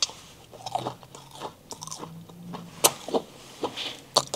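Crunching and chewing of a crispy fried McDonald's Chicken McNugget, heard close up as irregular crisp crackles.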